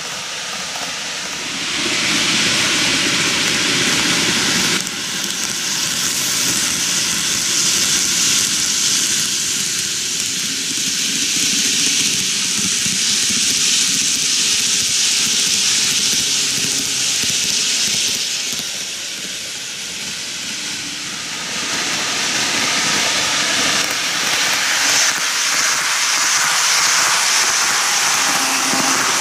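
An N gauge model train, the TOMIX Kintetsu 80000 series Hinotori 8-car set, running on plastic track: a steady, hissy rush of wheels and motor. It swells about two seconds in, eases briefly about two-thirds of the way through, then swells again as the train comes past once more.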